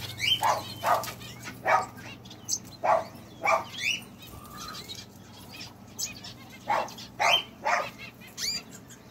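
A dog barking in short runs of two or three barks, about a dozen in all, with small finches chirping faintly between the barks.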